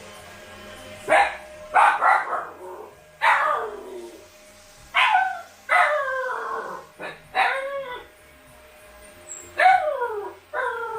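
Siberian husky puppies yipping and howling: about eight short calls, each starting sharply and falling in pitch, with a brief pause before the last few.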